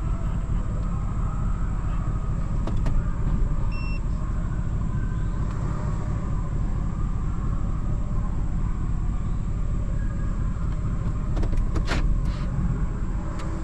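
Motor vehicle running and driving, a steady low rumble, with a few sharp clicks near the end.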